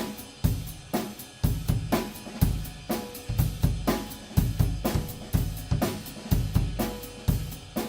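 A drum kit played solo: bass drum, snare and cymbals in a steady groove, with heavy kick thumps about every half second to a second and some drum hits left ringing.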